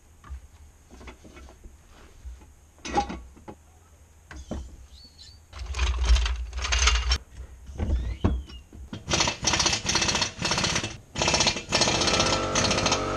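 Metal clatter from a steel floor jack and jack stands being worked and moved, with a sharp clank about three seconds in. Long stretches of loud, fast rattling follow, and they stop abruptly near the end.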